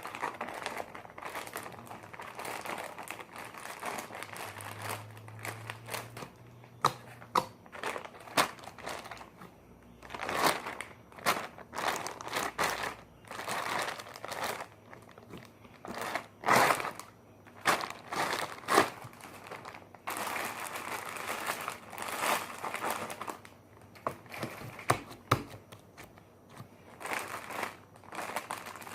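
Slime being kneaded and stretched by hand, giving an irregular run of crackling and popping sounds.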